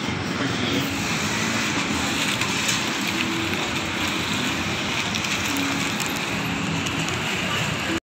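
Steady background noise with faint voices mixed in, cutting off suddenly near the end.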